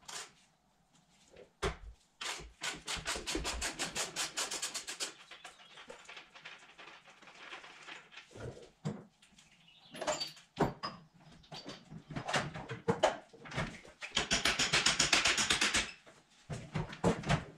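Ratchet wrench clicking in fast, even runs of about nine clicks a second, once a few seconds in and again near the end, with scattered knocks of tools against the motorcycle's metal parts.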